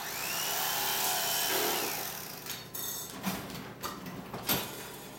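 Electric carving knife cutting a roast turkey: its motor whine rises as it starts, holds for about two seconds and drops away, followed by a few knocks.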